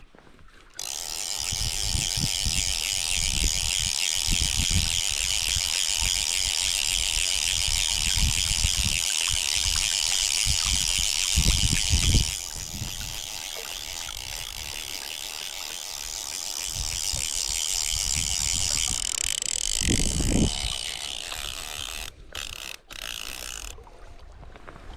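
Fly reel's click-and-pawl ratchet buzzing steadily as a hooked fish pulls line off, loud for about the first twelve seconds and then quieter until near the end. Low rumbles of wind on the microphone sit underneath.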